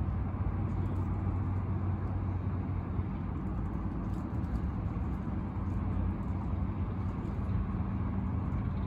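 Steady low drone of distant city road traffic, with a low hum running under it that is strongest in the first few seconds.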